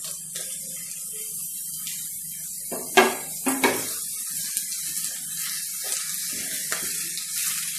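Onions, chopped tomatoes and curry leaves sizzling in hot oil in a non-stick kadai, a steady hiss, while a spatula stirs them, with a couple of sharp knocks of utensil on pan about three seconds in.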